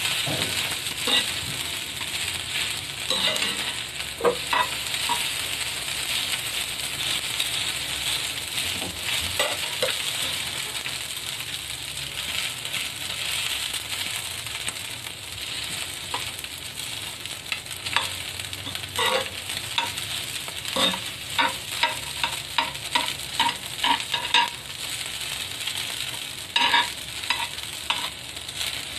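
Fried rice sizzling in a cast iron pan while two metal spoons stir and scrape it, clicking against the pan. The steady sizzle runs under the strokes, which come faster and in a quick run in the second half.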